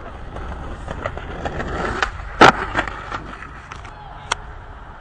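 Skateboard rolling with a low rumble, and a sharp, loud clack of the board about halfway through, followed by a few lighter clicks.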